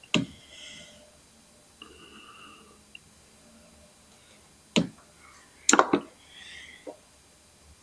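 A few sharp clicks and snaps of hand tools working on speaker wires, with brief faint scraping between them: one click at the start, another near five seconds in, and a quick pair just after.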